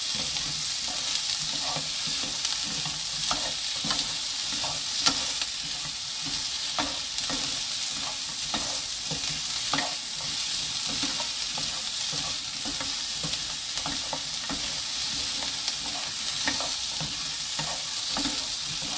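Sliced cucumber and green onion sizzling in oil in a nonstick frying pan on lowered heat, stirred and tossed with two wooden spatulas that scrape and tap against the pan many times.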